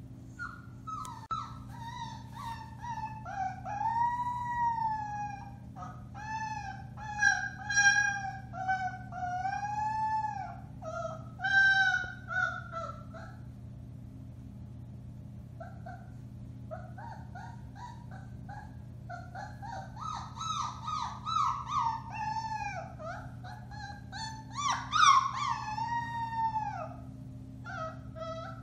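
Four-week-old Alaskan Malamute puppy howling in a string of high, wavering, arching calls. There is a break of a few seconds about halfway through, then the howling starts again, loudest near the end.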